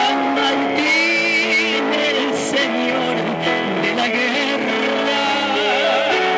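Electronic keyboard playing a hymn, with singing voices along with it.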